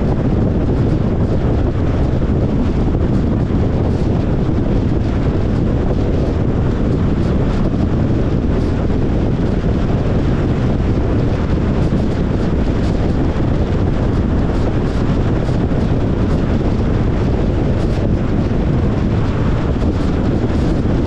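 Steady road and wind noise from a Tesla Model Y Long Range driving along, a constant rushing with most of its weight low down.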